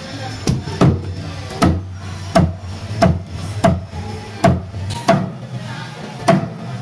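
A heavy cleaver chopping a catfish into steaks, each blow going through the fish and knocking onto the cutting board. About nine sharp chops come at a steady pace of roughly one every 0.7 seconds, each with a brief ring.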